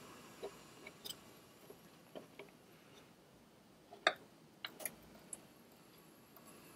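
Faint, scattered clicks and ticks as the flow control knobs of an anesthesia machine are turned by hand through their range, the sharpest about four seconds in.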